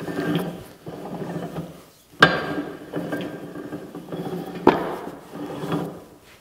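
Famco 5C arbor press being cycled by hand: the handwheel is spun back and forth, and the pinion running the rack ram up and down gives a rattly whirr in repeated passes. Two sharp knocks stand out, about two seconds in and again near five seconds.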